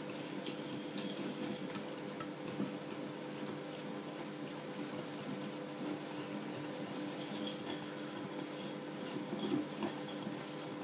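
Wire whisk beating egg yolks and granulated sugar in a glass bowl: quick, continuous scraping and clicking of the wires against the glass, over a steady low hum.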